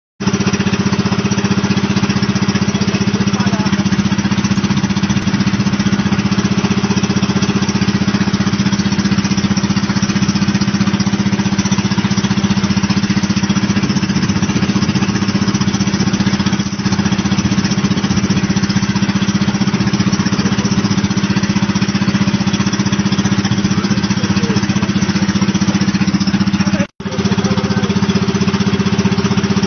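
Engine of a motorized outrigger boat (bangka) running steadily under way: a constant low drone with a hiss above it. It drops out for an instant near the end.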